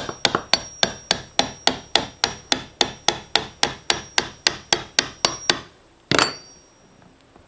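Claw hammer tapping the handle of a wood chisel in quick, even strokes, about three or four a second, driving it under cured epoxy on a fiberglass deck. The tapping stops a little past halfway, and a single louder knock with a short ring follows.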